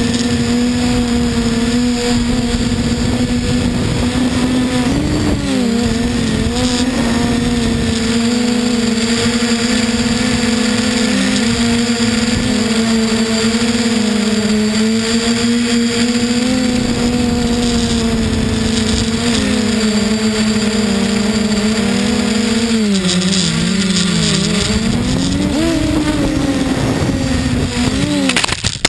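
XK350 quadcopter's motors and propellers humming steadily, heard from the camera on the drone, with wind rumbling on the microphone. The pitch wavers, dips and rises again near the end, then the sound cuts off suddenly as the drone flies into a tree and crashes.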